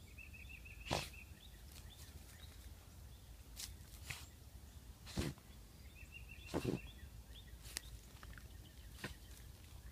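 A small dog snorting hard with her nose down a mole tunnel: three loud snorts, about a second in, five seconds in and six and a half seconds in, with fainter sniffs between. A bird chirps in quick trills twice in the background.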